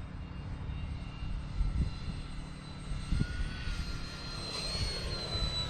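Radio-controlled model warplane on a landing pass, its motor a thin high whine that drifts slightly lower in pitch in the second half, over a gusty rumble of wind on the microphone.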